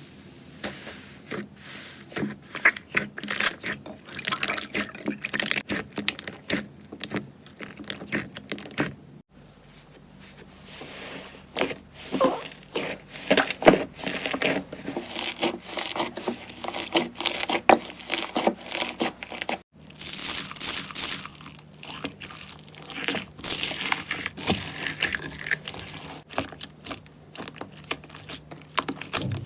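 Slime being squeezed, stretched and pressed by hand: a dense run of crackling, popping and squishing sounds. The sound changes abruptly twice, about nine and twenty seconds in, as one slime clip cuts to the next.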